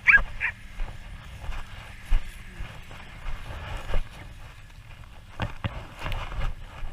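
Horse moving about, with irregular dull thuds of hooves on the ground and a few sharper knocks scattered through.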